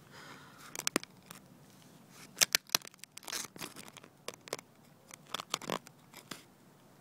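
Handling noise on a phone's microphone: a run of sharp clicks, short scrapes and rustles with the tricopter's motors silent, as the camera phone or the landed craft is handled.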